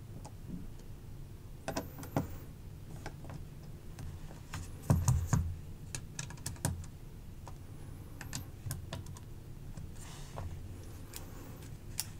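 Scattered small clicks and taps of a hand screwdriver turning the handle screws of a Spyderco Smock folding knife and of the knife being handled, with a few sharper clicks about five and six-and-a-half seconds in.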